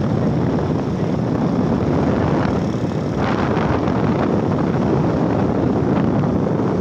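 Steady running noise of a motorcycle ridden at speed, mixed with wind rushing over the phone microphone.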